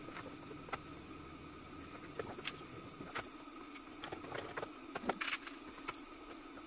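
Small metallic clicks and taps as low-profile bolts are fitted and turned with a hex key in a steel mounting plate, with a cluster of louder clicks about five seconds in, over a steady background hum.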